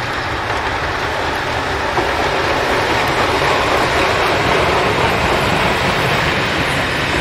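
Passenger train passing close by: the 4-8-4T steam tank locomotive 464.202 goes past, followed by its rake of double-deck coaches rumbling along the rails. The noise is steady and builds a little to its loudest about four to five seconds in.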